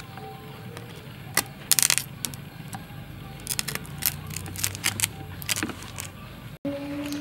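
Metal knife blade clicking and scraping against a horseshoe crab's hard shell while its innards are worked loose: irregular sharp taps, with a loud cluster about two seconds in and many more in the second half. A low steady hum runs underneath, and just before the end a break in the sound gives way to a low steady tone.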